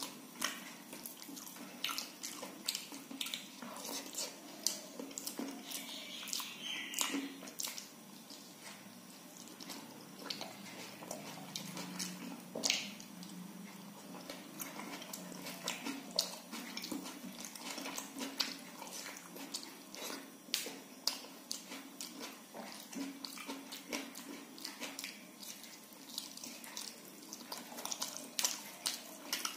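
Close-up eating sounds: fingers mixing soft khichdi on a banana leaf and mouth chewing, heard as many irregular small clicks and squelches.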